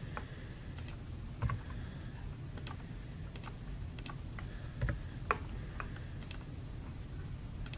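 Scattered clicks of a computer mouse and keyboard, about a dozen separate clicks a fraction of a second to a second apart, with one stronger click about five seconds in, over a steady low hum.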